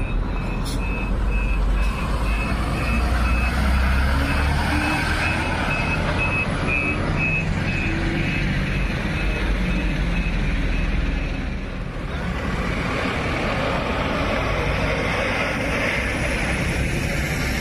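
A large diesel bus's engine rumbles as the bus pulls away. Over it, an electronic warning beeper repeats about twice a second and stops about eleven seconds in. Another bus's engine and road noise then build as it approaches.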